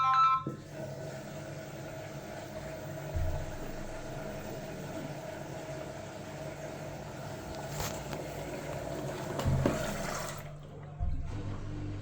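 LG washing machine's electronic start melody ending, then water rushing into the drum through the fill valve for about ten seconds, which cuts off sharply. A low hum starts about a second later.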